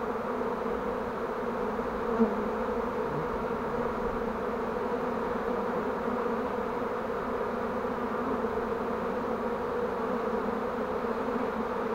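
A swarm of honeybees buzzing over and around an open swarm box, a steady, even hum of many bees.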